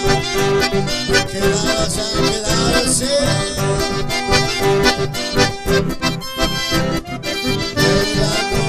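Two button accordions playing a lively tune together, with acoustic guitar strumming over a steady low beat.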